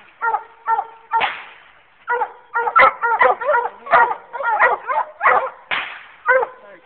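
Coonhounds barking, short pitched barks several a second, with a brief lull about two seconds in. A couple of harsher, noisier bursts are mixed among the barks.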